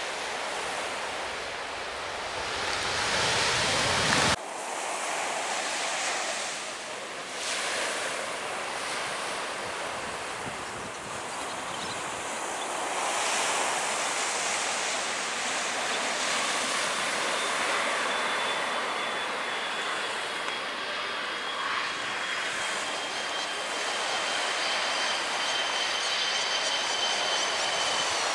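Wind buffeting the microphone, cut off abruptly about four seconds in. Then the jet noise of an Indonesian Air Force Boeing 737 on approach builds, with a steady high engine whine from about midway that drops slightly in pitch near the end as the jet lands.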